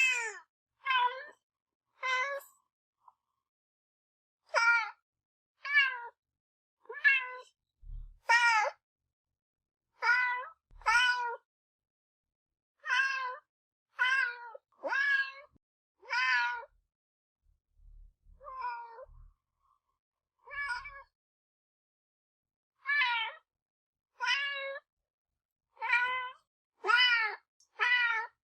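Kitten meowing over and over: short, high-pitched meows, each under a second, coming about one to two seconds apart, with a few fainter ones about two-thirds of the way through.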